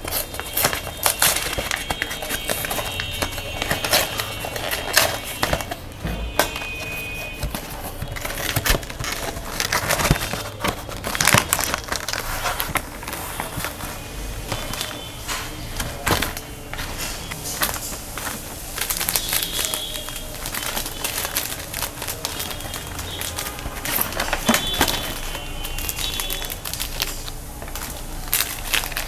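Meat grinder crushing chocolate-filled snacks: dense, irregular crackling and crunching throughout, over a faint steady hum.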